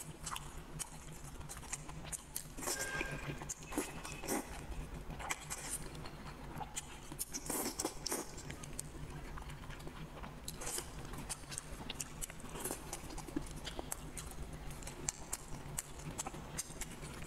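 Close-miked mouth sounds of someone eating braised noodles: wet chewing, slurping and sticky lip smacks, many short clicks throughout. A faint steady low hum runs underneath.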